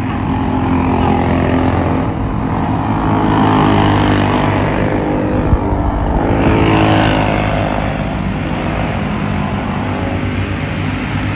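Senior champ karts racing on a dirt oval, their small engines buzzing and revving. The sound swells as the pack passes about three and a half seconds in, and again near seven seconds.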